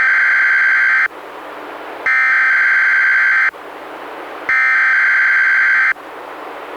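NOAA Weather Radio SAME header: three identical buzzing digital data bursts, each about a second and a half long and about a second apart, over a steady radio hiss. They are the coded alert header that opens a Required Weekly Test.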